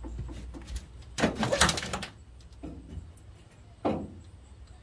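Tack-welded steel angle-iron frame clanking and scraping against the steel pickup bed as it is set in place for a test fit, with a burst of metal clatter about a second in and a single sharp knock near the end.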